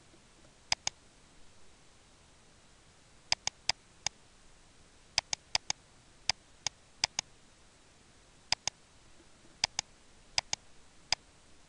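Computer mouse clicking: about twenty sharp clicks at irregular intervals, many in quick pairs, over a faint steady hiss.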